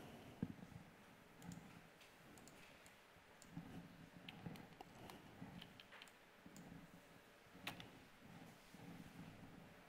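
Near silence: quiet room tone with a few faint, scattered clicks of computer input, the sharpest about half a second in and another near the end.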